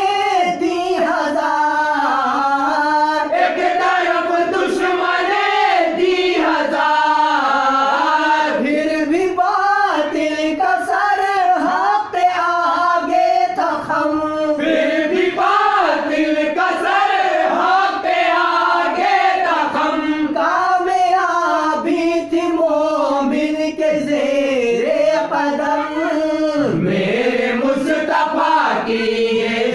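Naat singing: voices chanting a continuous melodic line in a choir-like style, the melody rising and falling without pause.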